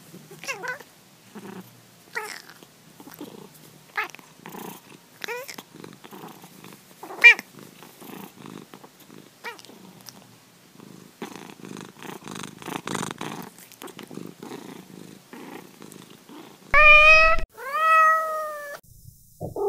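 Domestic cats: short meows about every second or two over a soft purr, then a stretch of steady purring, then two loud drawn-out meows that rise and fall in pitch near the end.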